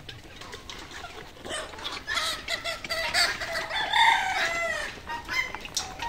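A rooster crowing once, a long call of about three seconds that falls in pitch at the end, with hens clucking around it.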